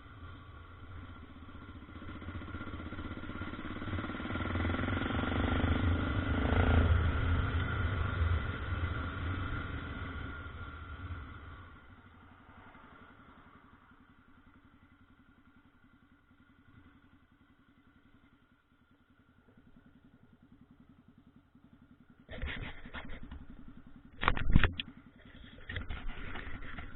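Honda NX 350 Sahara motorcycle engine under acceleration. It grows louder to a peak about seven seconds in, then fades away into near silence, like a bike passing and riding off. Near the end come several sudden loud knocks and rattles.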